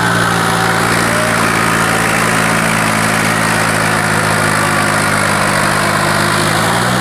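Swaraj 855 FE tractor's diesel engine running hard and steady at close range while pulling a harrow, its pitch rising slightly near the end.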